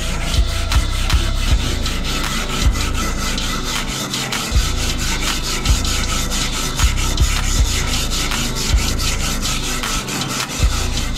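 A stiff brush scrubbing a rusty steel knife blade under liquid in a metal tray, in repeated rubbing strokes.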